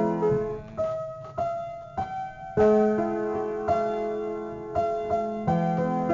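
Piano played slowly: chords and single notes struck about once a second and left ringing as they fade.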